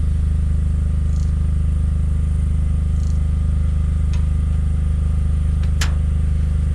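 Excavator's diesel engine running steadily at an even speed, with a few light ticks and one sharp click near the end.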